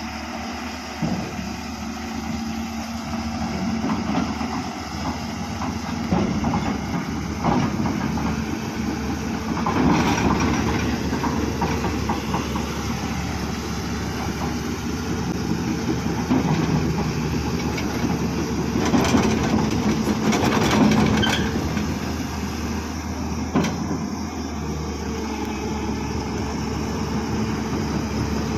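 Diesel engines of a 10-wheel dump truck and a crawler excavator running in deep mud. The drone swells louder about ten seconds in and again around twenty seconds, with a few sharp clanks.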